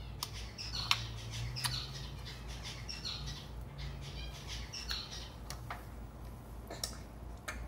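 Fox making a string of short, high squeaky chirps and squeals, with a few sharp clicks among them.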